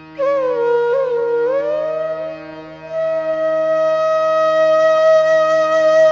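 Instrumental music: a wind-instrument melody over steady held background tones. The melody slides and bends in pitch for a couple of seconds, then settles into one long held note that swells toward the end.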